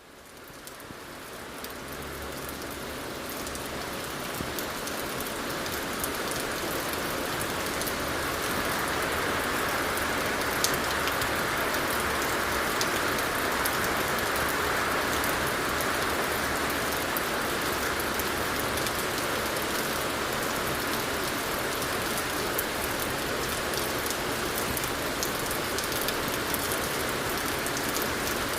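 Steady rain falling, a dense even hiss with scattered sharp drop ticks, fading in over the first few seconds and then holding level.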